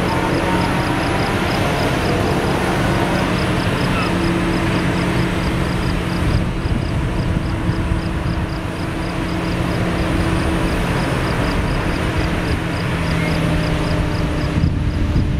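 A fire engine's motor running steadily, with a constant low hum, as it pumps water to the hose line. A faint, high, regular ticking repeats about three times a second over it.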